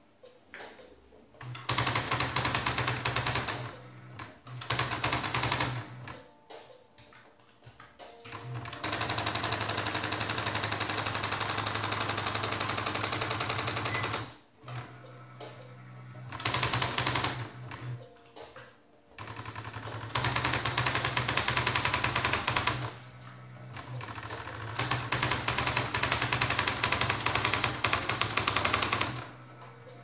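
A 1986 electronic typewriter driven by an Arduino, typing on its own: runs of rapid, even strikes with a low motor hum under them, broken by short pauses between lines. There is one long unbroken run of typing in the middle.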